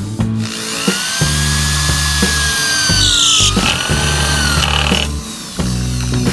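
Background music with a steady beat and bass notes. Over it, a power tool whines for about five seconds, its pitch rising and sagging as if under load, then stops.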